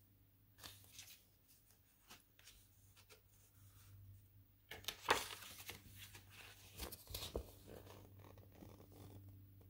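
Pages of a large glossy photobook being handled and turned, faint paper rustles and soft clicks, with a louder page-turn swish about five seconds in.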